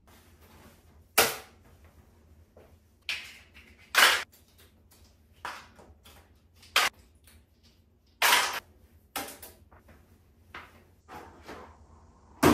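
Objects being handled and set down on a tiled bathtub ledge: about ten sharp, irregular knocks and clacks, spaced a second or so apart, in a small tiled bathroom.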